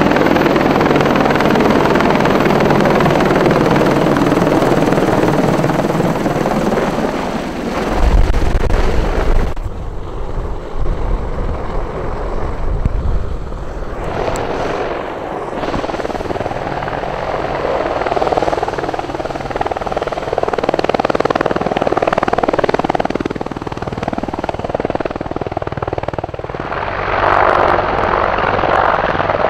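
AH-64 Apache attack helicopter passing low and close, its four-blade main rotor beating over the whine of its twin turboshaft engines. About eight seconds in, a heavy low rumble of rotor downwash buffets the microphone for a couple of seconds.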